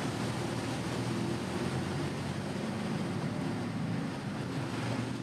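Steady rumble and hiss of a moving vehicle heard from inside its covered rear compartment: engine and road noise with some wind.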